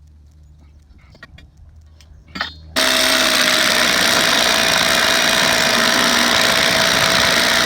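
Power tool running at full speed, starting abruptly about three seconds in and running steadily for about five seconds before cutting off.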